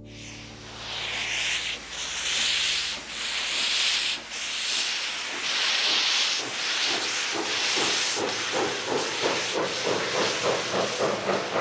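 Steam locomotive chuffing: hissing puffs of exhaust steam about once a second, quickening near the end to an even beat of about three a second.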